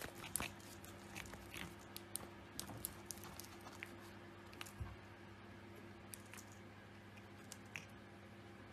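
Faint, irregular small clicks and taps of a cat biting and chewing on a wire wand toy, over a faint steady hum.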